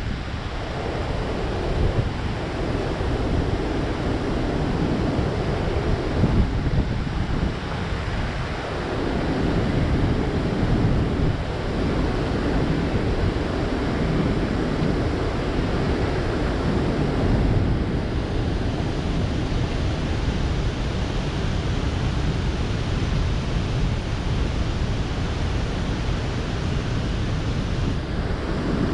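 Steady rush of water pouring through a dam's open flood gates and churning around the boat, mixed with wind buffeting the microphone as a low, uneven rumble.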